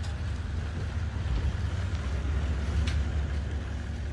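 Wind buffeting the microphone, making a steady low rumble with a light rushing haze above it, and a single faint click about three seconds in.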